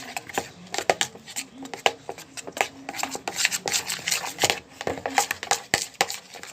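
Slime mixture being stirred in a bowl with a utensil: irregular clicks, taps and scrapes against the bowl, several a second.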